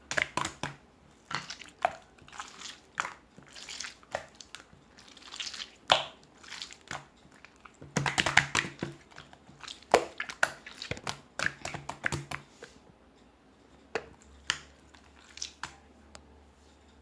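Slime being squeezed, stretched and folded by hand, giving irregular wet clicks and pops. They come thickest in the middle and grow sparse near the end.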